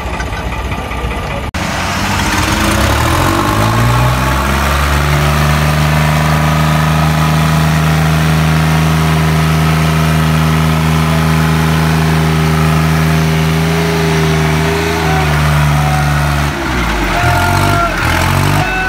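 New Holland 3630 tractor's diesel engine run up to full throttle over a few seconds and held steady at high revs while straining in a tractor tug-of-war. The revs drop away near the end, and shouts follow.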